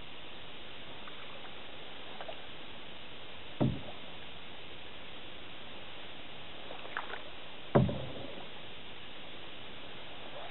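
Canoe being paddled on calm water, the wooden paddle knocking against the side of the canoe twice, about four seconds apart.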